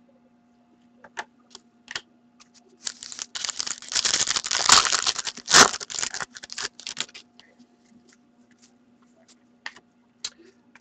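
Trading cards being handled and shuffled in the hands: a few light clicks, then about four seconds of dense dry rustling and clicking of card stock with two sharper snaps in the middle, tailing off into scattered clicks.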